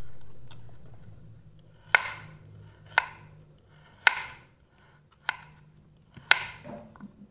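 Kitchen knife chopping carrots on a plastic cutting board: five sharp chops, about a second apart.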